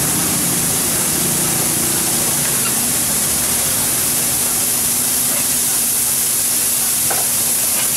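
Steam hissing and sizzling steadily off a heap of bean sprouts cooking on a hot teppanyaki griddle.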